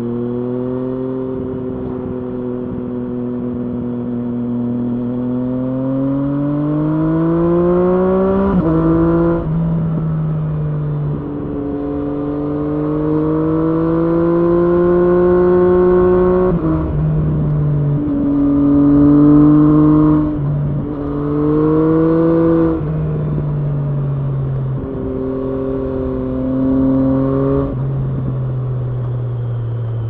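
Triumph Street Triple S inline three-cylinder engine through an SC Project SC1-R slip-on exhaust with its dB-killer fitted, pulling on the road. The note climbs steadily for about eight seconds, drops sharply at a gear change, then rises and falls again with several more shifts.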